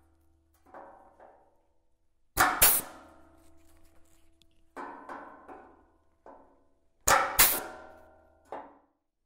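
Handheld punch tool punching spot-weld holes through the sheet-steel floor pan flange: two loud sharp punches, each a quick double strike, with the thin steel ringing after each. Lighter metallic clanks come between them as the tool is moved along the flange.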